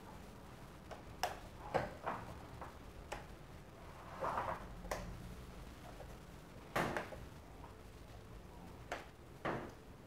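Plastic fan grille being handled and snapped together: scattered light clicks and knocks of hard plastic, one louder knock about two-thirds of the way through.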